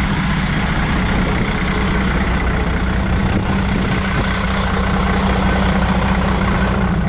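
Heavy truck's Mercedes diesel engine running steadily, purring.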